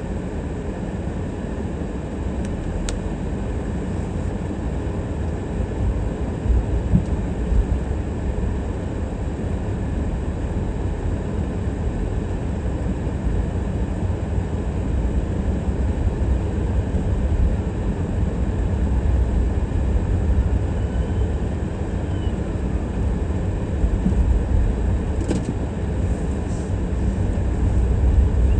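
Car driving: a steady low rumble of engine and tyre noise, with a few faint ticks.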